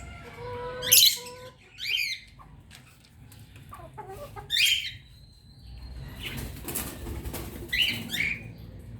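Chickens calling: several short, loud clucks and squawks scattered through, the loudest about a second in.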